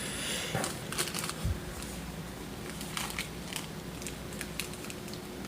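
Paper and packaging rustling and crinkling as gifts from a mail box are handled, with scattered light clicks and one soft thump about one and a half seconds in.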